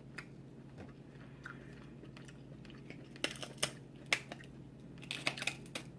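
King crab shell being cracked open: faint clicks at first, then a run of sharp cracks and snaps from about three seconds in.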